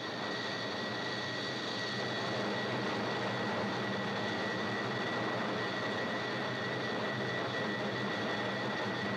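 Steady jet aircraft noise in the cockpit, with a thin high whine over it, as the aircraft flies beyond its critical Mach number into the transonic buffet.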